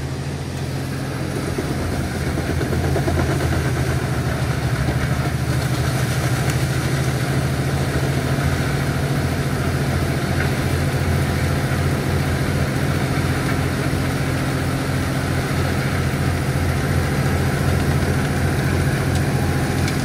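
Fendt 942 Vario tractor's engine running steadily under load while it drives a wood chipper, heard close beside the tractor. It grows a little louder about two seconds in.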